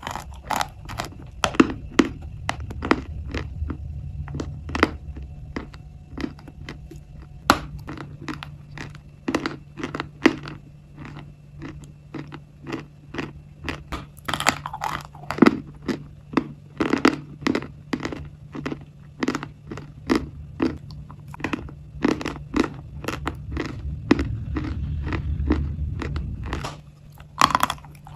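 Close-miked biting and crunchy chewing of a hard, pale chalky bar moulded like a chocolate bar: rapid sharp crunches, several a second, throughout, over a steady low hum.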